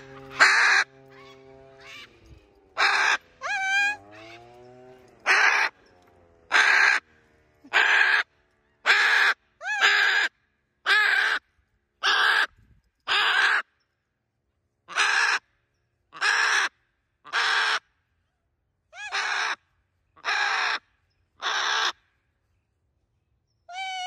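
A bird repeating short, harsh caws, about eighteen of them at roughly one a second, until they stop near the end.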